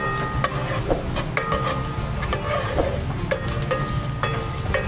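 Wooden spatula stirring and scraping chopped garlic around a metal pot, with irregular knocks against the pot over a light sizzle of garlic sautéing in oil.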